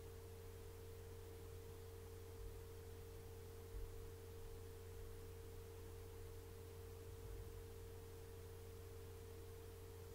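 A faint, steady drone: one held mid-pitched tone over a low hum, unchanging throughout, with a faint low bump about four seconds in.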